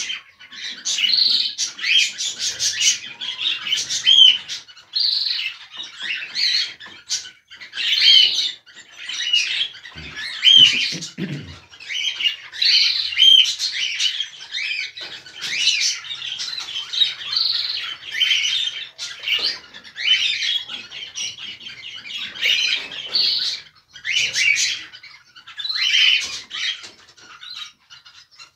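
Cockatiels chirping and calling in a steady stream of short squawks and quick whistled notes, with a few dull low knocks about ten seconds in.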